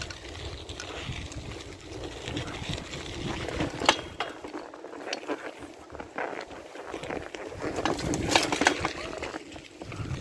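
Mountain bike rolling along a gravel trail: a steady crunch of tyres on gravel with wind on the microphone, and the bike rattling and clicking over bumps, most sharply about four seconds in and again near the end.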